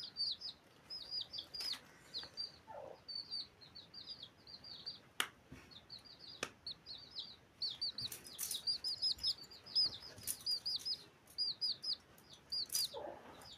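Small birds chirping: rapid short high chirps repeating several times a second, with a few sharp clicks in between.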